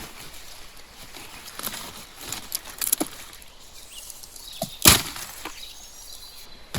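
Scattered sharp snaps and knocks, with one loud crack about five seconds in.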